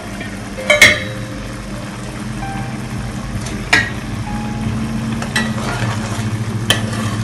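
Sharp metal clinks of a utensil against a metal cooking pot: a loud one about a second in, another midway and a third near the end, over a steady low hum. Near the end a metal ladle starts stirring the thick gravy in the pot.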